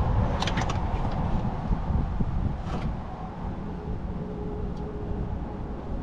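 Steady low rumble of wind on the microphone, with a quick cluster of light clicks about half a second in and another click near three seconds.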